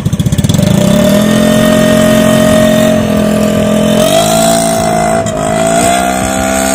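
Honda BeAT 115 scooter engine with a gutted (bobokan) MP7-style aftermarket exhaust, revving up from idle within the first second and then holding high revs. The pitch steps higher about four seconds in and again near six seconds.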